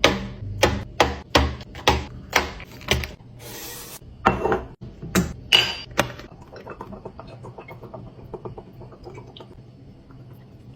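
Hard containers and packaged items being handled and set down while restocking a fridge: a quick series of sharp clacks, about three a second, then a few louder knocks, then a run of softer, faster ticks and rattles.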